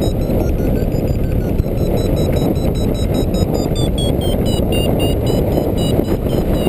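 Strong wind rushing over the microphone of a flying hang glider, a loud, steady buffeting rumble. Faintly above it, a variometer beeps quickly, its pitch drifting up and down with the climb rate.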